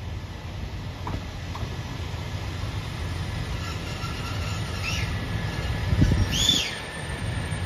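JR Hokkaido KiHa 283 series diesel multiple unit pulling slowly into the station, its low engine and wheel rumble growing louder as it nears. Near the end there are two brief high squeals and a loud swell of rumble.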